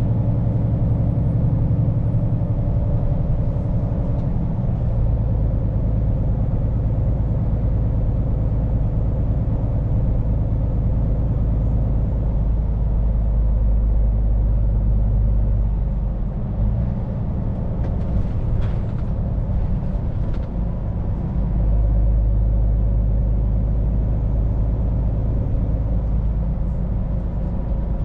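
Scania P410 truck's diesel engine running steadily while driving, with road noise. Its low hum shifts in pitch and strength a few times: a few seconds in, just past halfway, and again about three quarters through.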